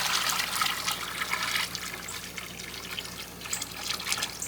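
Water pouring and trickling into a swimming pool as it is filled, with small irregular splashes; the flow is louder at first and eases to a lighter trickle after a couple of seconds.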